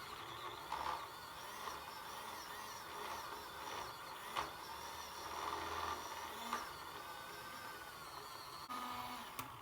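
Battery-powered mini makeup brush washing machine running, its small motor whirring steadily with a few light clicks as a brush turns in soapy water.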